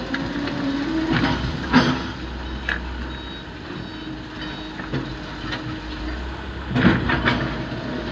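Diesel engines of an excavator and a loaded dump truck running steadily, with several metal clanks and knocks, the loudest just under two seconds in and near seven seconds.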